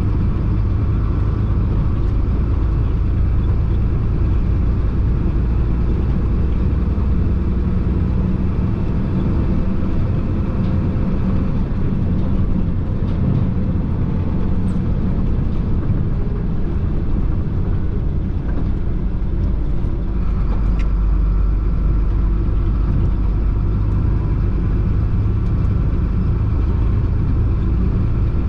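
Chenglong concrete mixer truck's diesel engine running steadily under way, with a low rumble and road noise.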